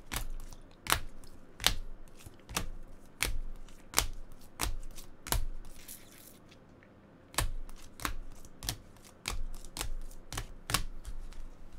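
A run of sharp clicks and taps, roughly one every two-thirds of a second, with a pause of about a second and a half past the middle.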